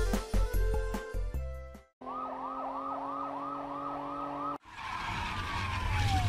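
A song's music ends, then a police car siren yelps, rising and falling about three times a second, and cuts off abruptly. A car then whooshes past, its pitch falling as it goes.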